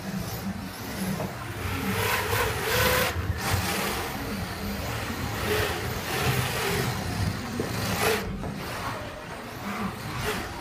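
Radio-controlled drift car's electric motor whirring and its tyres scrubbing across the carpet track. The sound swells and fades every couple of seconds as the car drifts through the corners.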